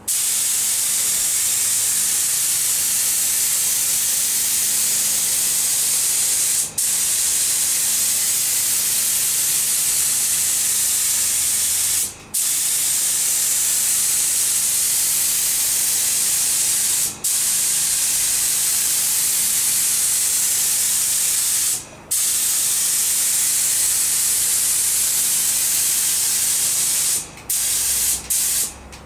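Compressed-air paint spray gun hissing steadily as it sprays a coat of paint. The trigger is let go briefly about every five seconds between passes, then three times in quick succession near the end.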